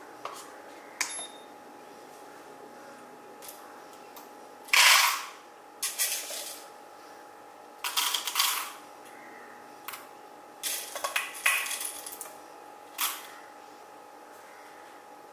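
Whole coffee beans poured from a dosing tube into a small paper cup on a digital scale, rattling in several short spills with clicks as the cup and tube are handled; the loudest spill comes about five seconds in. The beans are being weighed before grinding.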